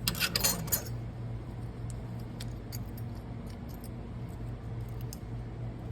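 Small metal anti-rattle clips from a brake pad hardware kit clinking and jangling as they are handled: a burst of clinks in the first second, then scattered light clicks, over a steady low hum.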